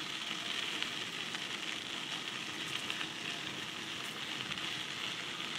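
Steady hiss of a bicycle rolling along a paved trail: tyre noise on the asphalt mixed with wind on the phone's microphone.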